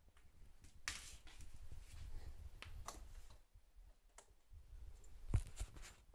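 Handling noise: a few faint scattered clicks and rustles as the lamp and camera are moved, with a sharper knock about five and a half seconds in, the loudest sound.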